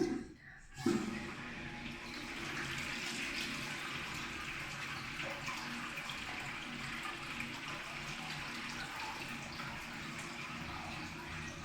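INAX/LIXIL AWU-802AM sensor urinal flushing: water rushes in with a sudden start about a second in and runs steadily for the rest of the stretch. This is a unit whose flush the uploader calls a bit odd-sounding, an abnormal noise.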